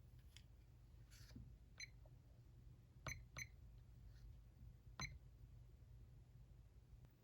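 Modern Forms Vox 26-inch DC ceiling fan running with a faint, steady low hum, with four short high chirps over it, the loudest a little after 3 s and at 5 s.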